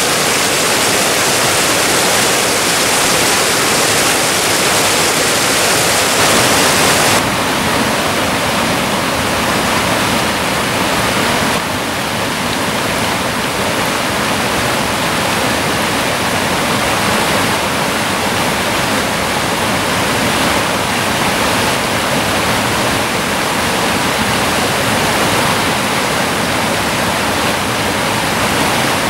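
West Burton Falls (the Cauldron), a waterfall, pouring steadily into its pool: a loud, continuous rush of falling water. About seven seconds in the sound suddenly loses some of its hiss, and it dips slightly again near twelve seconds.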